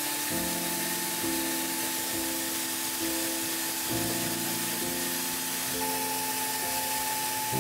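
Background music of held chords that change every second or so, over a steady hiss.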